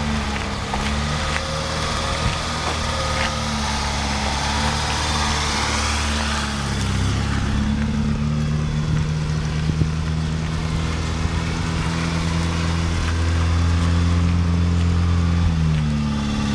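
1983 Volkswagen Golf Mk1's four-cylinder engine running at low revs and idling, heard close to the exhaust. The engine note shifts pitch about midway and rises briefly near the end.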